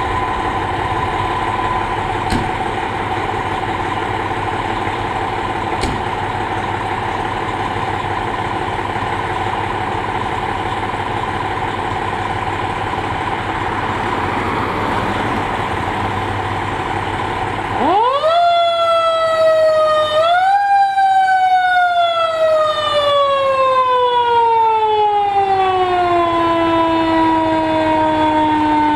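Fire engine idling with a steady hum. About 18 seconds in, its siren starts: it winds up fast, gets a second push, and then slowly falls in pitch.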